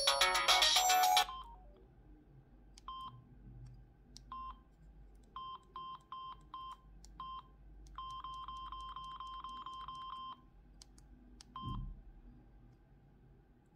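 Samsung SGH flip phone's incoming-call ringtone, cut off abruptly about a second in, followed by the phone's short keypad beeps as its menus are stepped through: single beeps at first, then a quick run of about ten, and one more near the end.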